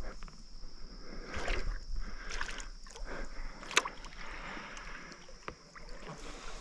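Water lapping and sloshing against a fishing boat's hull, in uneven swells, with one sharp click about four seconds in.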